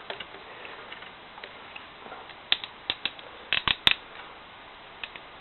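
Plastic parts of a G1 Transformers Ironhide toy's battle station clicking and knocking as they are handled: a few scattered clicks, then a quick cluster of sharper ones a little past halfway.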